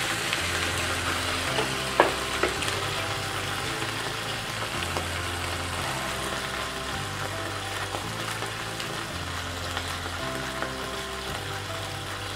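Small whole fish deep-frying in hot oil in a wok, the oil sizzling steadily throughout. A single light knock comes about two seconds in.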